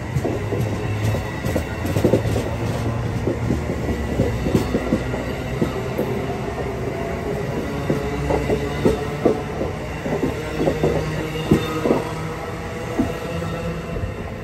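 Amtrak Amfleet passenger cars passing close at speed: a steady rumble of steel wheels on rail, broken by many sharp clicks and knocks. The sound begins to fade near the end as the last car goes by.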